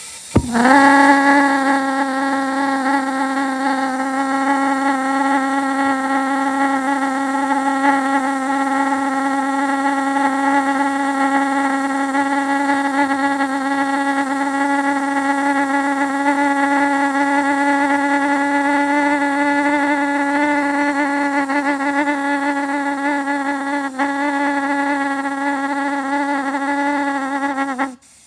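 Pulse jet firing with compressed-air assist: a loud, steady, buzzing drone that sweeps up in pitch as it lights about half a second in, then holds one pitch until it cuts off abruptly near the end. It runs only while air is fed from a compressor and will not sustain itself.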